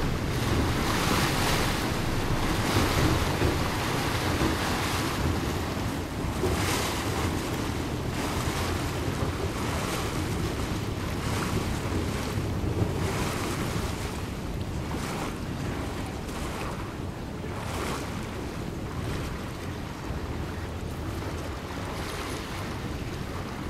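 Ferry under way: a steady low engine sound and water washing along the hull, with gusts of wind buffeting the microphone.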